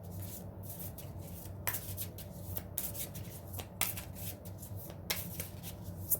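Deck of tarot cards being shuffled by hand: a run of quick, irregular card snaps and flicks, over a low steady hum.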